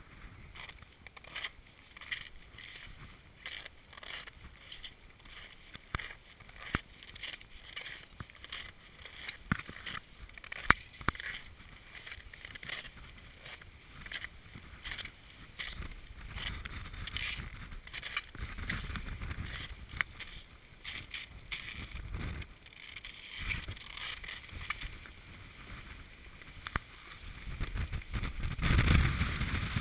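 Steady footsteps of crampons crunching on snow and rock, with strong wind buffeting the microphone in gusts that build from about halfway and are loudest near the end.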